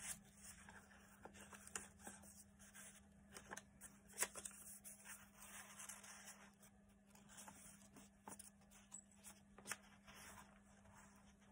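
Faint rustling and light taps of paper and card being handled: cards slid into a paper pocket and journal pages turned, with the sharpest tap about four seconds in.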